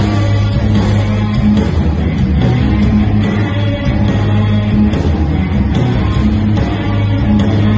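Live rock band playing loud and continuous, with electric guitars and drums.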